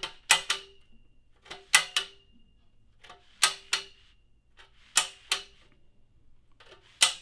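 Keyboard stand's push-button lock mechanism clacking into place as the double-X-braced stand is worked through its height positions. There are five pairs of sharp metal clacks, each with a brief ring, about one and a half seconds apart.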